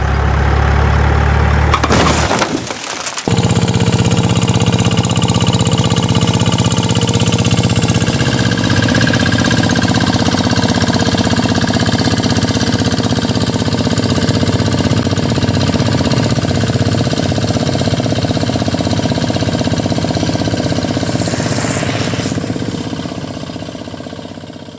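A heavy vehicle's engine running steadily, loud and rumbling. It drops out briefly about two seconds in, then carries on and fades away near the end.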